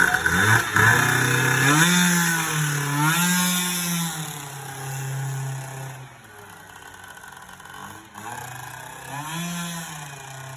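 Small two-stroke scooter engine being revved: quick blips up and down in pitch in the first few seconds, then running steadier. About six seconds in it drops to a quieter idle, and it is blipped once more near the end.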